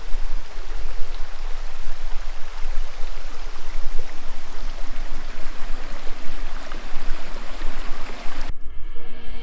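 Stream running, a steady rush of water; it cuts off abruptly near the end as music begins.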